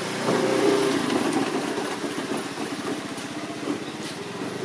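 An engine running, made up of quick, even firing pulses. It is loudest in the first second and a half, then eases off.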